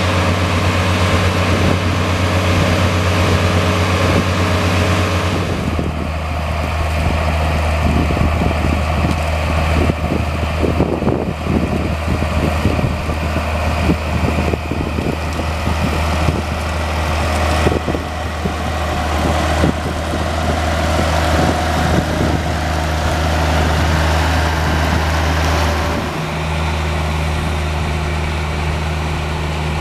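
Diesel engine of a Case IH tractor running steadily while pulling a slurry tanker across a field. The sound changes character about five seconds in, with irregular rattles mixed in through the middle.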